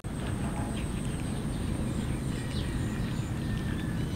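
A group of cats eating cooked rice off a metal tray, with short bird chirps in the background.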